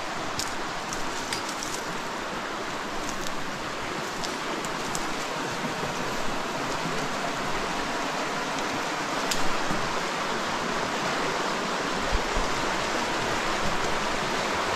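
Shallow, rocky mountain creek running over stones in riffles: a steady rush of water that grows a little louder toward the end. A few faint crackles and clicks of footsteps through dry grass and on stones sound in the first half.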